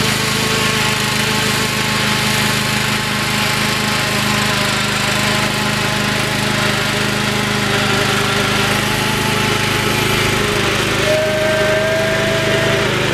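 Riding lawn mower's small engine running steadily under load as it tows a car up a slope, with a high buzz. A short higher-pitched whine joins in near the end.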